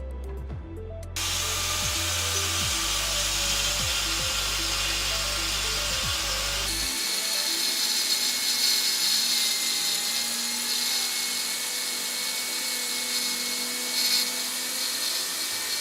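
INGCO angle grinder cutting through brick: a steady, dense grinding hiss with a faint motor whine, starting about a second in. Background music plays under it for the first half.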